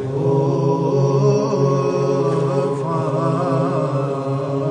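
Background music of slow vocal chant: deep voices holding long notes over a steady drone.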